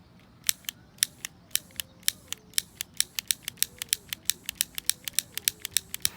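A rapid series of sharp clicks, about five a second, starting about half a second in.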